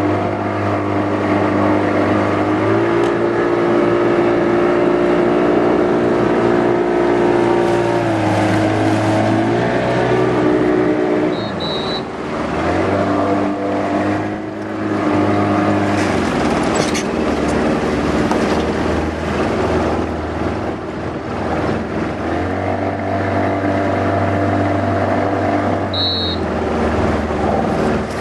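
Motorboat's outboard engine running steadily at low speed, its note stepping up and down several times as the throttle is eased and opened.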